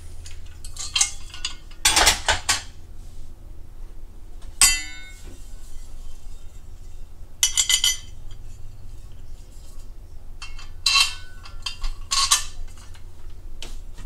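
Steel nuts, bolts and washers clinking and rattling as they are handled against the table's steel parts, in scattered bursts, with one sharp ringing clink about four and a half seconds in.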